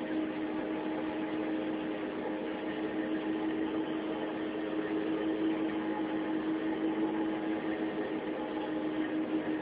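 A boat's engine running steadily: a constant low hum over a hiss.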